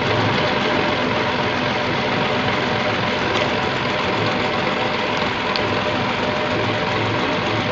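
Toyota 4-ton forklift engine idling steadily.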